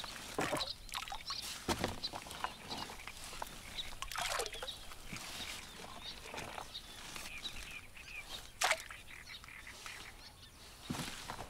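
Scattered short bird calls over a quiet outdoor background, with irregular rustles and a few sharp clicks.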